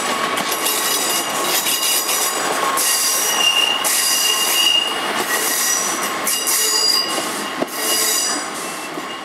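Steel wheels of loaded box wagons of a freight train squealing on curved track as the wagons roll away, high-pitched squeals swelling and fading in several waves over steady rumble from the rails. There is a single sharp click about three-quarters of the way in.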